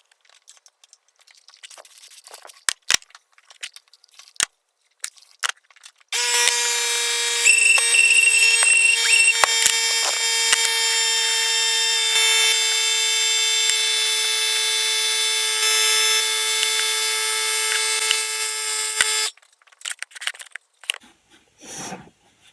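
Scattered light clicks, then a loud, steady buzzing alarm-like tone that starts suddenly about six seconds in, holds for about thirteen seconds, and cuts off abruptly.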